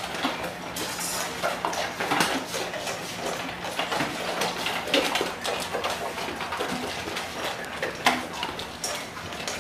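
Dogs eating from their bowls after grace: irregular clinks and clicks of the bowls as they eat.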